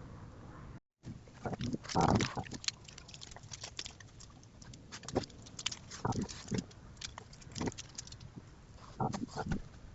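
A raccoon working at a bird feeder hung from a rope: irregular knocks, scrapes and rustles, louder around two, six and nine seconds in. The sound drops out briefly about a second in.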